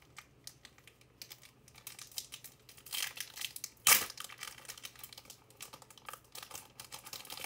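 Trading-card pack wrapper crinkling and cards being handled, a run of light clicks and rustles with one sharp snap about four seconds in.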